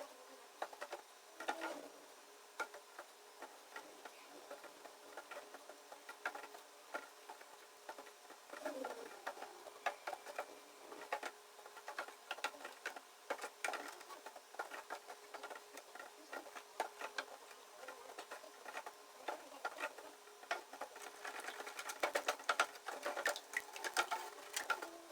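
A wooden spoon stirring sugar into thick sourdough starter: a stream of irregular clicks and knocks as the spoon works against the container, busier and louder near the end.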